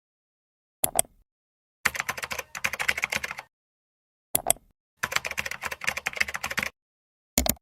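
Rapid key-like clicking in two runs of about one and a half seconds each, each run preceded by a pair of single clicks, with dead silence between, as in an added typing sound effect. A last pair of clicks comes near the end.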